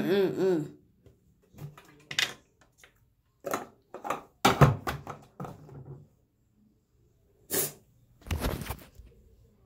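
A short strained vocal sound from a boy grimacing over the sink after mouthwash, then a series of clicks, knocks and short hissy bursts as a plastic mouthwash bottle is handled and its cap worked at the bathroom sink.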